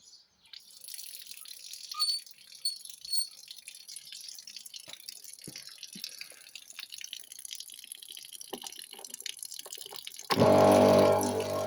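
Water hissing and dripping through a Kärcher K4 pressure washer, with scattered clicks. Near the end its motor and pump start suddenly and run with a steady hum, much louder than the water.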